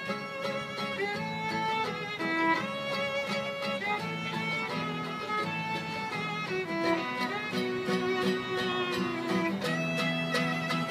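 Acoustic string trio playing: a violin carries a sliding, ornamented melody over steadily strummed acoustic guitar chords.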